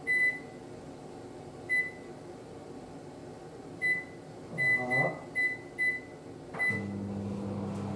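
Microwave oven keypad beeping about eight times as it is set, several presses in quick succession, then the oven starts and runs with a steady low hum from about seven seconds in.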